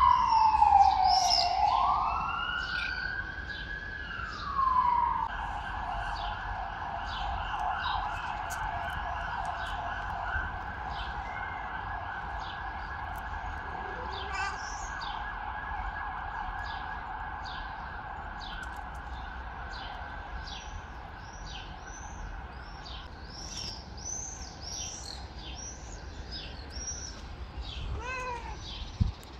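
An emergency vehicle's siren, loudest at first: a slow wail falling and rising, then switching about five seconds in to a fast warble that slowly fades away. In the second half a small bird chirps over and over, and near the end a cat meows once.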